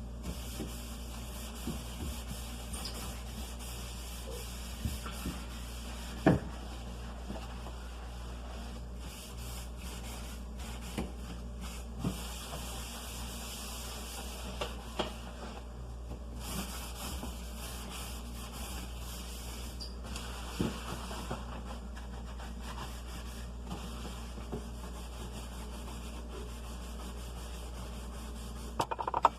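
Refrigerator surfaces being wiped and scrubbed by hand: an on-and-off rubbing hiss with scattered light knocks, one louder knock about six seconds in. A steady low hum runs underneath.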